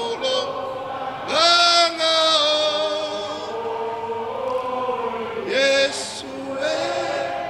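Voices singing a slow chant together, long held notes that slide up or down into each new phrase.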